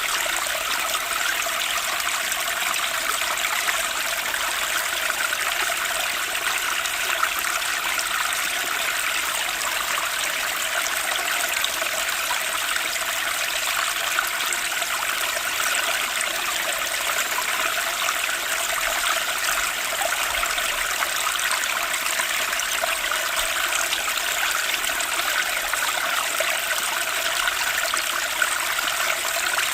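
Flowing stream water, a steady, unbroken rush and trickle.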